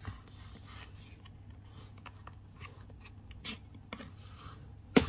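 Cardboard perfume box being handled: the paper sleeve rubs and slides against the box with small taps and rustles. A sharp knock near the end is the loudest sound.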